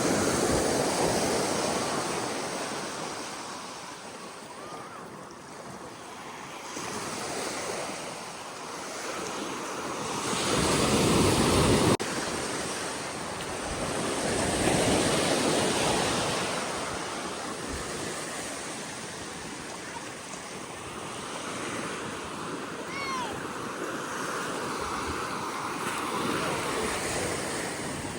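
Ocean surf breaking and washing up on a sandy beach, swelling louder and softer every few seconds. The loudest surge cuts off abruptly near the middle.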